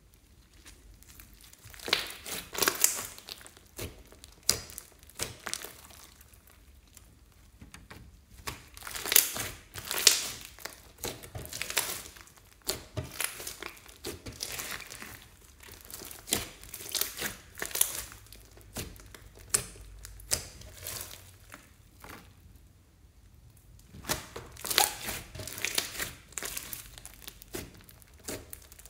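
Hands kneading, folding and pressing a thick slime studded with foam beads. It gives clusters of quick, wet crackles with short quieter pauses between handfuls.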